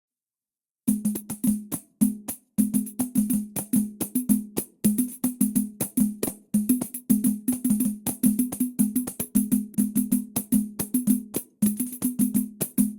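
Brazilian percussion playing a samba rhythm: a dense run of rapid strikes, each with a short pitched ring, starting about a second in.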